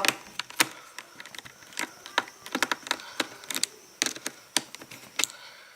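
Screwdriver backing out a screw from the bottom cover of a Lenovo Yoga 500 laptop: a string of light, irregular clicks and ticks.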